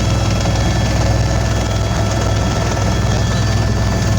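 Helicopter running steadily, its sound heaviest in the low range.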